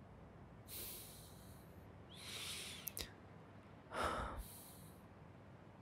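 A man's soft breaths and sighs close to the microphone, four in all, with a couple of faint clicks about three seconds in.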